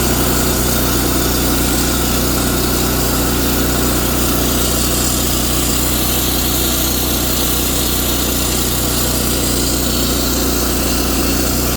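An engine running steadily at a constant speed, with a low even hum under a wash of mechanical noise. It starts and stops abruptly.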